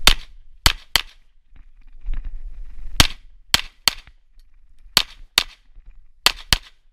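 Semi-automatic pistol firing ten shots in quick groups of two and three, with a second or two between groups: a competitor engaging targets in turn during a practical-shooting stage.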